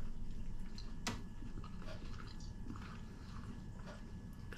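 A person chewing a mouthful of breaded potato cake with poached egg: soft, wet mouth sounds, with a sharper click about a second in.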